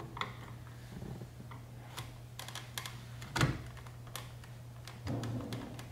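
Scattered light clicks and taps of a screwdriver probing the release hole on the back of a BMW M3 steering wheel, pushing up the spring clip that holds the driver's airbag. There is one louder knock about three and a half seconds in, over a faint steady low hum.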